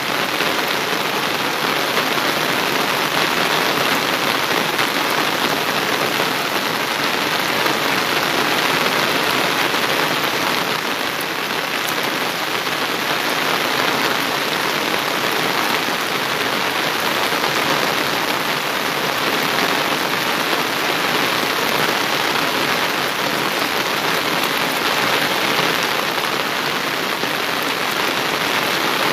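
Heavy rain falling steadily on waterlogged crop fields, an even, unbroken hiss.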